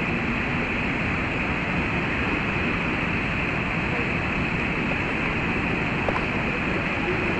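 Steady, even roar of the Iguaçu waterfalls and the churning river below them, with wind noise on the microphone.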